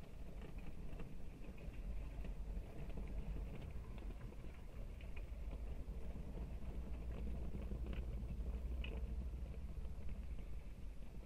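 Heavy diesel earthmoving machinery running steadily: a low, even engine rumble with occasional light clinks and rattles over it.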